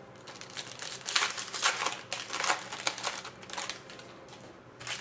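Foil trading-card pack wrapper crinkling and rustling as a pack is opened and the cards pulled out, in a run of crackly bursts from about a second in that dies down near the end.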